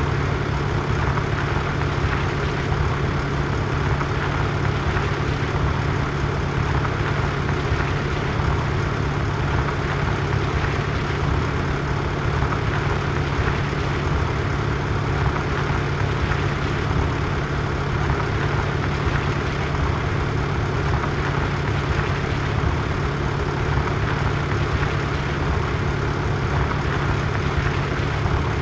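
Tractor engine running at a steady speed with an even, unchanging hum.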